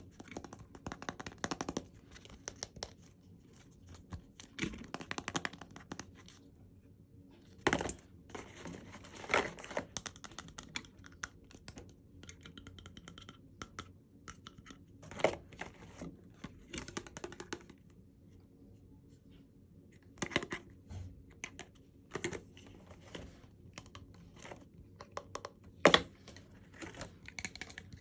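Packaging being handled and opened by hand: irregular rustling, crinkling and tearing, with scattered sharp clicks and taps.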